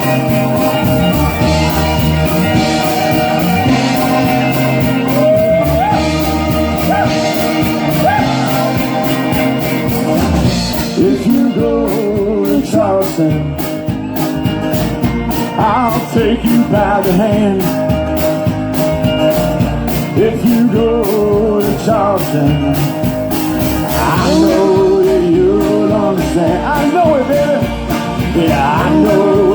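Live band playing a rock song: guitar with bending notes over bass and drums, with the drum beat coming in strongly about a third of the way through.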